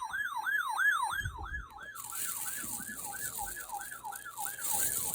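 Electronic warning siren in a fast yelp, its pitch sweeping up and down about three times a second. Hiss comes in about two seconds in.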